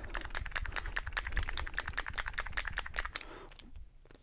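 Rapid run of small plastic clicks, about ten a second, from hands working the cap of a small plastic bottle. The clicks thin out about three seconds in.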